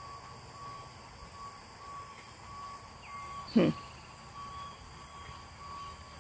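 Quiet rural outdoor ambience: insects chirping steadily under a faint, evenly repeating beep, like a distant reversing alarm. A brief voice sound cuts in once, about three and a half seconds in.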